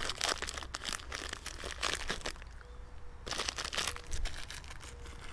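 Plastic packaging being crinkled and torn open by hand: dense crackling for the first couple of seconds, then a few short bursts of crinkling.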